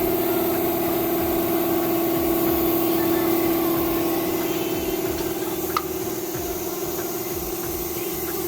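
A motor running steadily with a constant pitched hum, easing a little after about five seconds, with a single sharp click about six seconds in.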